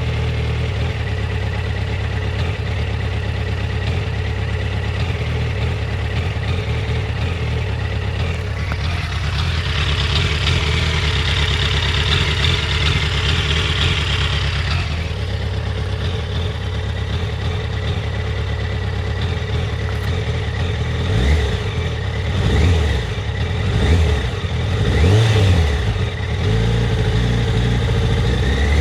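Yamaha FZ1's inline-four engine idling roughly while warm, with a hiss for a few seconds near the middle. In the last third the throttle is blipped about five times in quick short revs. The owner's complaint is a rough, jerky warm idle at low rpm, cause unknown; the coils are in spec.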